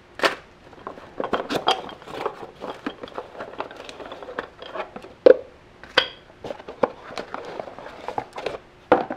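New ceramic brake pads and their metal shims being taken out of a cardboard box: cardboard rustling and scraping with light metallic clicks and clinks, and a sharper knock about five seconds in.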